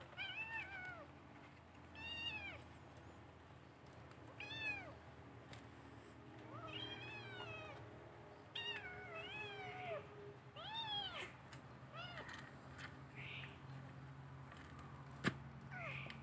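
A kitten meowing over and over, short high mews that rise and fall in pitch, about one every second or two. A single sharp click near the end.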